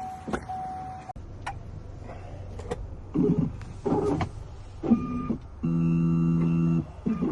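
An electronic key-cutting machine cutting a key by code. After a few clicks and handling noises, its motor gives a steady, even-pitched whine that starts about six seconds in and lasts about a second.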